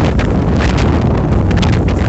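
Strong storm wind buffeting the microphone in a steady low rumble, broken by many short crackles.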